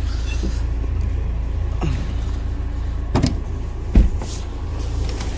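Steady low rumble, with a few light knocks and a louder thump about four seconds in as the car's door is opened.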